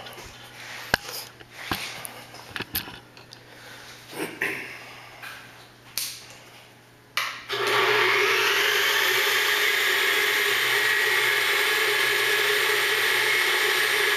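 A few light clicks and knocks of handling, then about halfway through a BF20L Vario milling machine's spindle motor switches on and runs steadily at speed, with no cutting yet.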